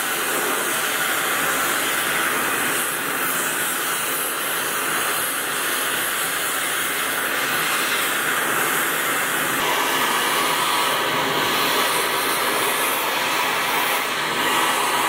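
Oxy-acetylene torch with a rosebud tip, its flame hissing steadily as it heats a band saw's bearing casting to melt the old babbitt out. The tone shifts slightly about ten seconds in.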